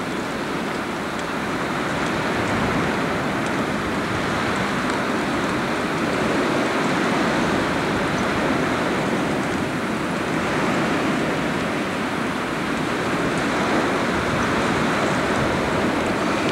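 Wind blowing across a camcorder's built-in microphone: a steady rushing noise that slowly swells and eases.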